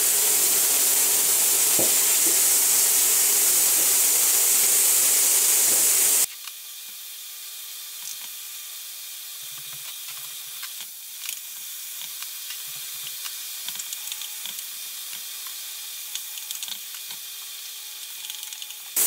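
Lardons sizzling loudly and steadily in a frying pan; about six seconds in the sound cuts off suddenly to a much quieter sizzle, with a wooden spoon knocking and scraping against the pan as the lardons are stirred.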